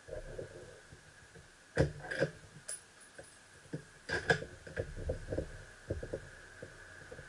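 Handling noise from a scoped bolt-action .30-06 rifle on a bipod being picked up and shouldered at a wooden bench: a run of clicks and knocks, loudest in two clusters about two and four seconds in, then lighter taps as it settles into aim. No shot is fired.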